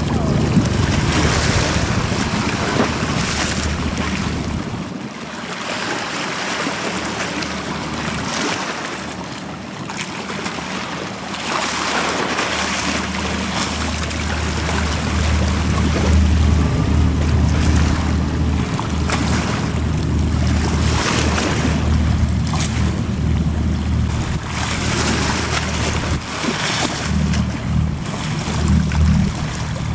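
High-speed passenger ferry passing close offshore: a low engine drone that fades for a few seconds and comes back stronger, over the wash of its wake and choppy water, with gusts of wind buffeting the microphone.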